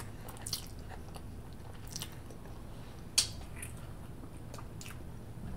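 Close-up mouth sounds of someone eating a bite of eggplant parmesan with spaghetti: quiet wet chewing with a few short sharp clicks, the loudest about three seconds in.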